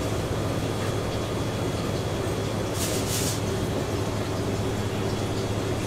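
A steady low mechanical drone, like kitchen machinery or ventilation running, with a short hiss about three seconds in.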